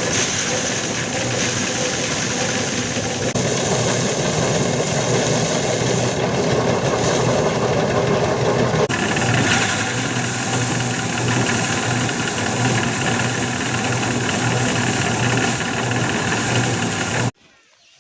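Engine-driven paddy threshing machine running steadily with a loud, continuous mechanical hum and rushing clatter. It cuts off suddenly near the end.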